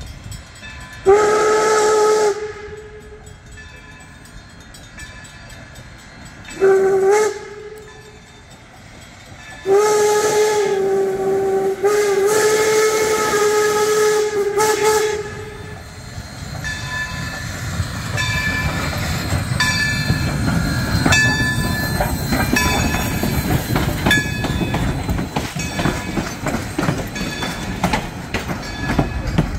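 Baldwin 0-6-0 switcher steam locomotive blowing its steam whistle three times, a medium blast, a short one and a long drawn-out one. Then the train rumbles past close by, with clanking and clicking from the wheels on the rails.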